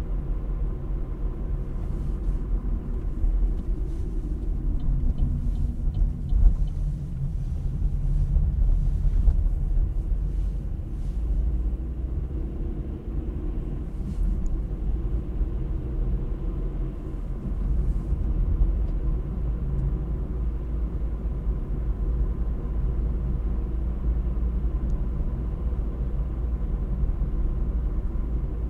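Car driving along: a steady rumble of engine and road noise with no let-up.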